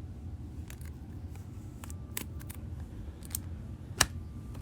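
Light clicks and rustles of a trading card being handled and worked into a plastic card holder, with one sharp click about four seconds in, over a low steady room hum.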